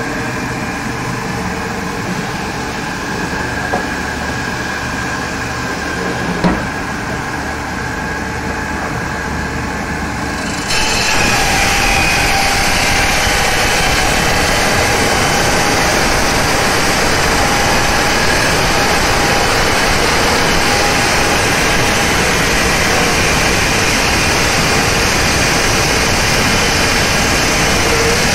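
A marble resizing machine runs steadily, its motor-driven circular saw blades spinning under water spray. About ten seconds in the sound turns suddenly louder and hissier and stays that way, as the blades cut wet through a marble tile.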